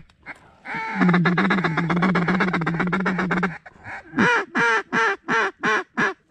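Duck call blown in the blind: a rapid, steady-pitched chatter lasting about three seconds, then a string of loud, evenly spaced quacks at about three a second.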